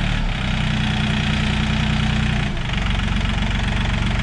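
John Deere 5036 EN tractor's three-cylinder diesel engine running steadily under load while pulling a tillage implement through the soil. Its note dips briefly about two and a half seconds in, then steadies.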